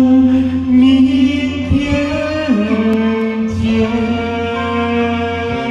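A man singing the long held closing notes of a slow song over keyboard accompaniment; the melody steps down to a lower held note about halfway through.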